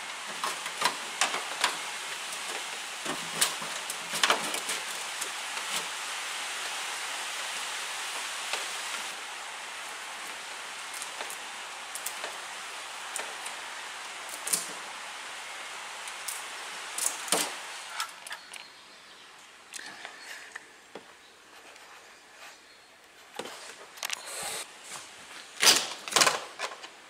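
Hands working trim, a door seal and wiring at a hatchback tailgate, with scattered clicks, knocks and rustles and the loudest knocks near the end. A steady hiss of rain runs under the first two-thirds and then stops.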